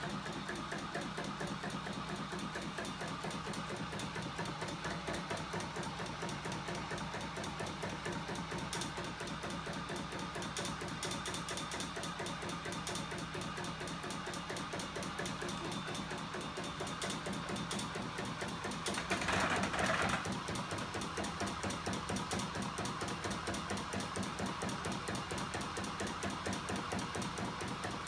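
Homemade crankshaft-and-flywheel linkage machine driven by an electric motor, running with a fast, steady mechanical rhythm. A louder burst of noise about two-thirds of the way through lasts around a second.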